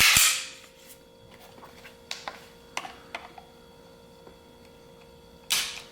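A few faint, sharp clicks of a Sig P320 pistol and a trigger pull gauge being handled between trigger-pull measurements, with a short rushing noise at the start and again near the end.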